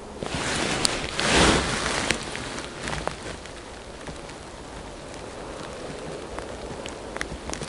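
Rustling of a fleece jacket and crunching of snow as the angler bends down over the ice hole, a burst of noise lasting about two seconds near the start. Then faint scattered clicks over low steady background noise.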